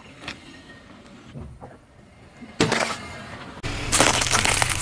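A car tyre rolling over and crushing things on pavement: a few faint cracks, a sharp loud crack about two and a half seconds in, then from about four seconds hard-candy lollipops cracking and crunching under the tyre.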